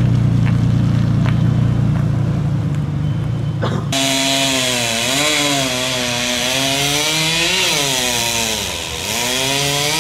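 A pickup truck's engine rumbling low and steady for about four seconds, then an abrupt change to a gas chainsaw running at the base of a broken tree trunk. The chainsaw's pitch rises and falls as the throttle is worked, dipping briefly near the end.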